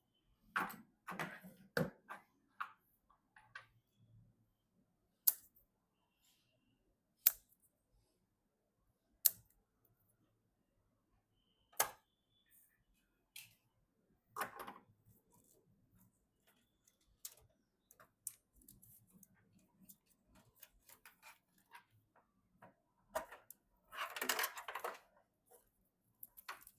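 Hands working on PC hardware: a scatter of small knocks and rustles, then four sharp single clicks about two seconds apart. A burst of rustling and clatter comes near the end.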